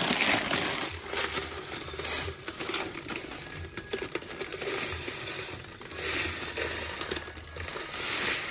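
Dried, ground orange peel pouring off a folded paper sheet into a glass mason jar: a grainy patter and hiss of the powder running into the glass, with the paper crinkling, loudest right at the start.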